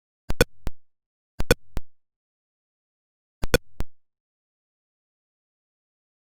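Atari Pong sound effects: short, sharp electronic blips coming in three quick clusters of two or three, with dead silence between them.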